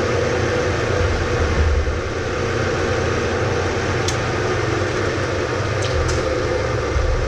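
Bridgeport milling machine running a fly cutter fitted with a smaller tool bar as it takes a facing cut across a metal block, with a steady rumble and a steady ringing tone. The cut chatters badly with this bar.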